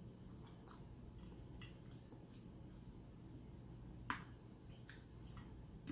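Faint wet mouth clicks and lip smacks of someone chewing an egg omelette, about six sharp clicks spread out, the loudest about four seconds in, over a low steady room hum.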